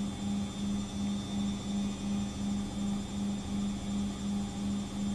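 A steady low electrical hum that swells and fades evenly about three times a second.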